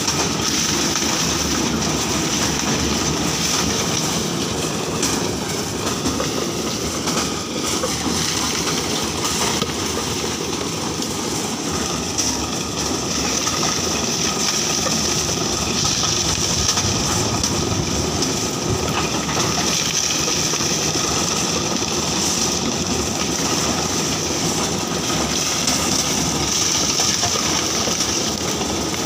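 Coconut dehusking machine running steadily, its rollers tearing the husks off coconuts as they are fed in, making a continuous loud mechanical rattle.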